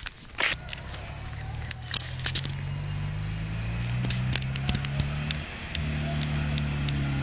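Citroën 2CV's air-cooled flat-twin engine approaching with a heavy load of twelve people aboard, getting steadily louder and rising in pitch as it accelerates. The note breaks off briefly about five and a half seconds in, then picks up again higher.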